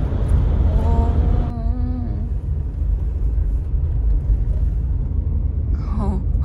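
Steady low road and engine rumble of a moving car, heard from inside the cabin, with a short voice-like sound about a second in and again near the end.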